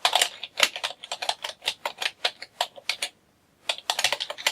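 Typing on a computer keyboard: a quick, irregular run of key clicks, several a second, pausing briefly about three seconds in before a faster flurry of keystrokes.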